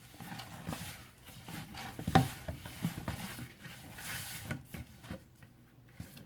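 Bread dough being mixed in a bowl as flour is worked in: irregular rubbing and scraping with scattered knocks, the sharpest about two seconds in.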